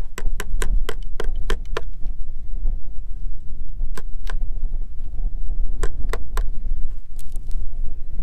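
Sharp metallic clicks from hand work with wire and tools at the foot of a wooden fence-brace post: a quick run of about five a second in the first two seconds, then a few single clicks later on. A low wind rumble on the microphone runs underneath.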